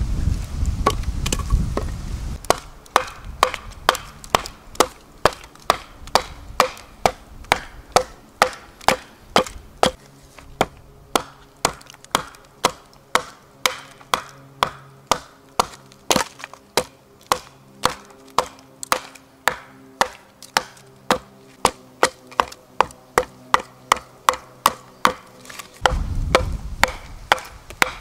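Hatchet hewing a split birch log on a wooden chopping block: a long run of sharp, evenly paced chops, about two a second. A low rumble lies under the first couple of seconds and comes back near the end.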